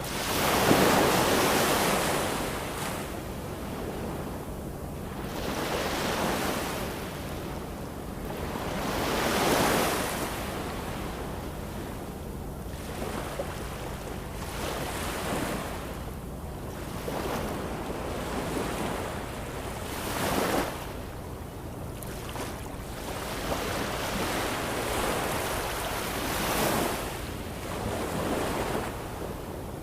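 Ocean waves breaking and washing up the shore in repeated surges every few seconds, each swelling and fading away; the largest comes about a second in.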